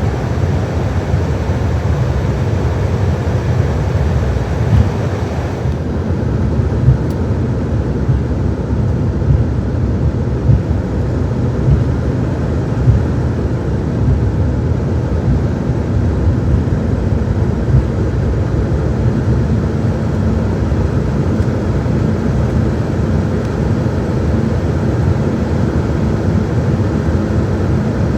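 Cabin noise inside an Embraer 195-E2 airliner on the ground: a steady low rumble with a fainter hiss above it. The hiss drops away about six seconds in.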